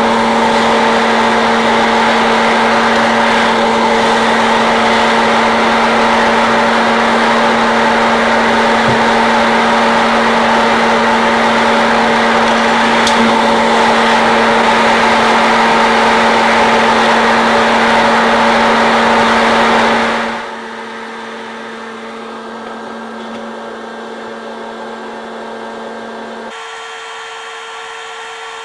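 Hot-air popcorn popper running as a coffee roaster, its fan motor making a steady hum and whoosh with green beans in the chamber. The sound drops to a quieter level about 20 seconds in.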